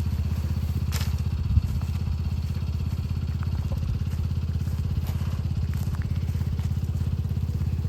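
An engine running steadily with a low, fast, even pulse, with a single knock about a second and a half in.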